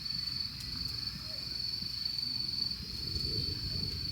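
Crickets chirring in one steady, high-pitched trill, over a low background rumble.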